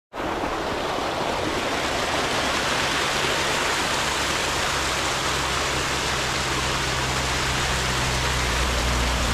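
Steady rush and splash of water from a small monsoon waterfall running over rocks into a shallow pebbly stream.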